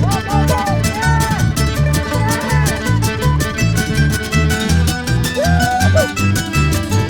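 Instrumental break in a band song: a steady drum beat and bass under a lead melody that slides up and down in pitch.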